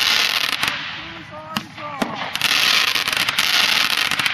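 Ground fireworks going off: a sudden hissing blast at the start that fades, a few sharp cracks in the middle, then from about two and a half seconds in a sustained hissing rush full of rapid crackling.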